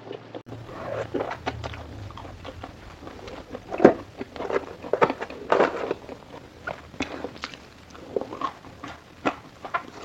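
Close-miked chewing and mouth sounds of someone eating fried food: irregular wet smacks and small crunches, with a louder bite about four seconds in and another near the middle.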